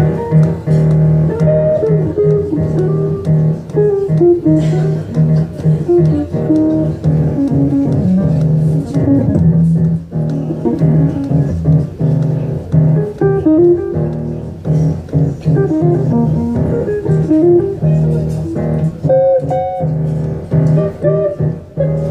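Live jazz from a duo of hollow-body archtop electric guitar and grand piano, the guitar playing moving melodic lines over held low notes.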